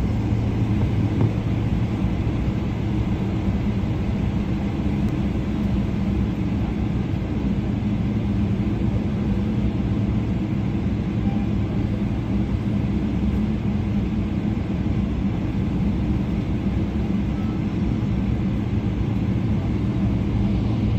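Steady low drone inside a Boeing 787-9 cabin while the airliner taxis, its engines at low taxi power. There is an even hum over a broad rumble, with no build-up to takeoff thrust.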